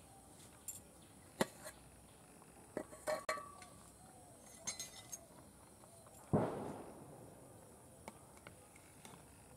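Metal cookware clinking: a steel plate lid is lifted off a pot of boiling rice and set down, with a brief metallic ring, then a steel ladle knocks against the metal pot while stirring. The loudest knock comes a little past the middle.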